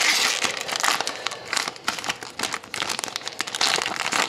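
Foil trading-card pack wrapper crinkling and crackling as it is torn open and handled, loudest at the start and again near the end.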